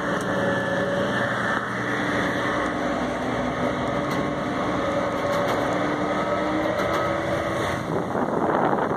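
Passenger ferry's engines running steadily, heard inside the cabin as a hum with a few held tones. About eight seconds in, a broader rushing noise of wind and water takes over.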